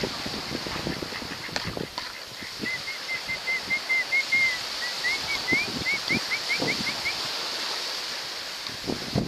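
Wind buffeting the microphone in uneven gusts over a steady hiss. Through the middle a bird gives a quick run of short, thin, high chirps, the last few rising.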